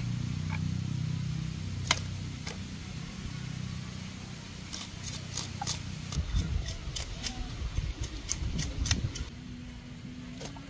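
Knife scraping scales off a whole common carp on a wooden board: a run of short, quick scraping strokes, about three a second, from about five to nine seconds in. A low steady hum is there in the first few seconds.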